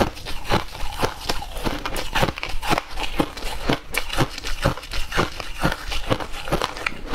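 Crushed ice crunched between the teeth, close to the microphone: a steady run of crisp crunches about twice a second.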